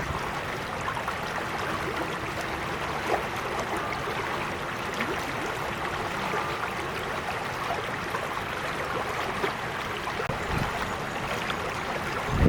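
Small creek flowing steadily over rocks, a continuous babble of running water with many tiny splashes and trickles; one slightly louder splash about three seconds in.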